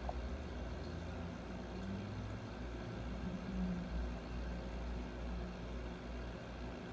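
Steady low hum with a faint hiss, from aquarium equipment running.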